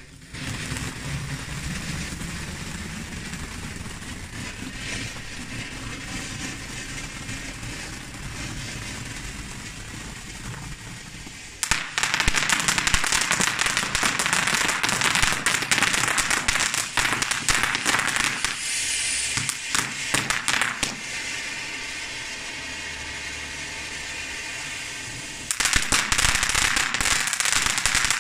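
Ground fountain firework (flowerpot) hissing steadily as it sprays sparks, then breaking into loud, dense crackling about twelve seconds in. The crackle eases back to a hiss for a few seconds and starts up again near the end.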